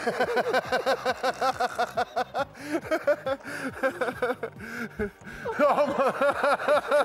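Men laughing hard in long runs of quick ha-ha bursts, with a short lull about two-thirds of the way through before the laughter picks up again.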